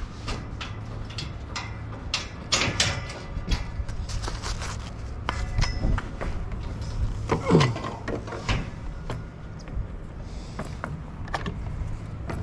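Irregular knocks, clicks and clatter of things being handled and moved, over a steady low rumble.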